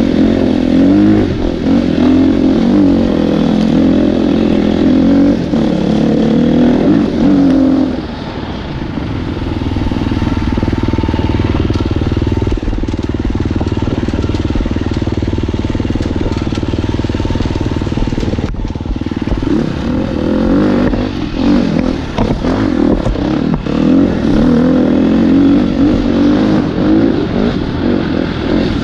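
Dirt bike engine running under constantly changing throttle on a trail ride, the pitch rising and falling as it is revved. About eight seconds in it eases off to a lower, steadier note, then picks up and revs up and down again past the twenty-second mark.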